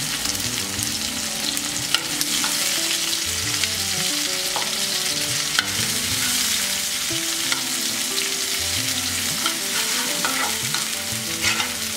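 Sliced onion and chopped garlic sizzling in hot oil with cumin seeds in a frying pan, a steady hiss, while a spatula stirs them, scraping and tapping the pan now and then.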